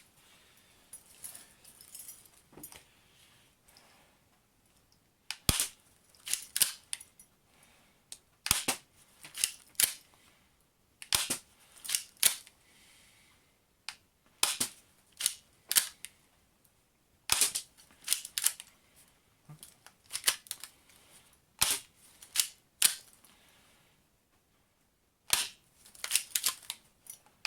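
Spring-powered airsoft pistol (Walther PPK type) cocked by pulling back the slide and fired repeatedly. Sharp plastic snaps and clicks come in pairs every second or two, starting about five seconds in.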